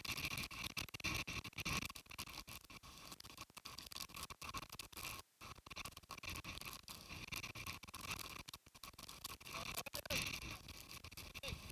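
Typhoon wind and rain spattering against the microphone, a choppy crackling rush with brief drop-outs, over storm waves breaking against a concrete seawall.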